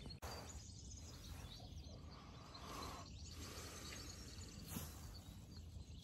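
Faint dawn birdsong: scattered short high chirps and calls from several birds over a low, steady outdoor background noise.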